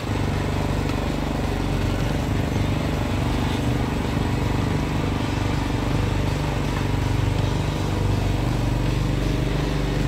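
Neva MB-23 walk-behind tractor's MX250 single-cylinder four-stroke engine running steadily under way, towing a trailer.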